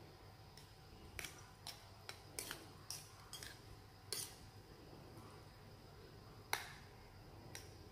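Metal spoon clinking against a porcelain bowl as it stirs and scoops cooked rice: a quick run of light clinks, then one sharper clink a couple of seconds later and a faint one near the end.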